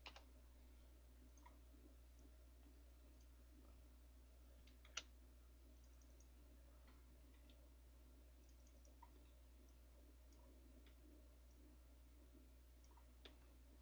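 Near silence: a steady low hum under a few faint, scattered computer mouse clicks, the loudest about five seconds in.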